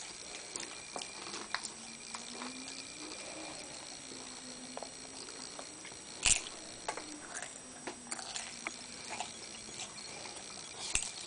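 A toddler chewing and crunching potato chips: scattered soft crunches, with two sharper crackles, one about six seconds in and one near the end.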